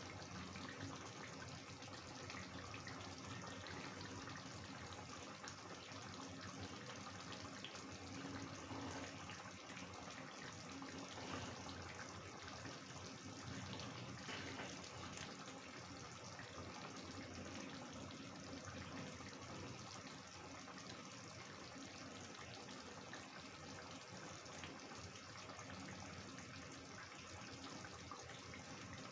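Chicken curry gravy simmering in a kadai, a steady low bubbling hiss with fine crackles.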